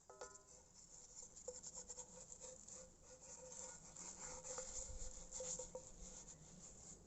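Faint crackling and sizzling from cooking over a small tin-can twig stove. Through the middle runs a thin, steady whistle-like tone.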